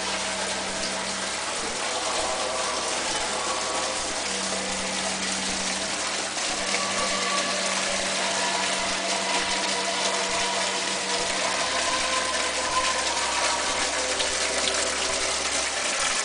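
Steady rush of running water from a miniature stream in an animated nativity scene, with a low hum that comes and goes.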